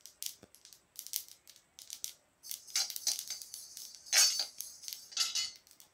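Black sesame seeds crackling and popping as they dry-roast in a heavy-bottomed kadai, a run of quick sharp pops; the popping is the sign that the sesame is roasted and ready to come off the heat. From about halfway, a steel spatula stirs the seeds, adding denser scraping and rattling.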